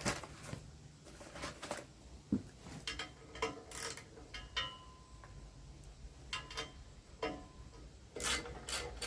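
Scattered light clicks, clinks and rustling as small packets of replacement bearings are opened and handled.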